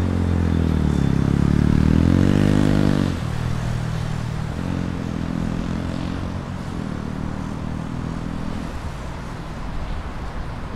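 A motor vehicle's engine revving up with rising pitch. About three seconds in the pitch drops suddenly, and the engine then runs lower and steadier, growing fainter near the end.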